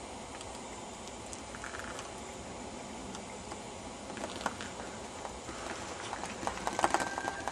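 Close rustling and crackling from a hand-held camera being moved among hedge leaves, over a steady outdoor hiss; the crackles get busier and louder in the last second or so.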